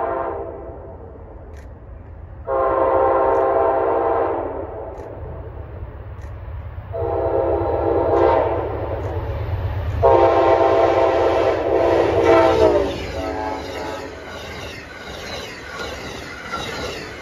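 Amtrak passenger train's locomotive air horn sounding three long blasts and a short one, growing louder as the train nears, over a low engine rumble. In the last few seconds the coaches pass close by with a steady rattle and hiss of wheels on the rails.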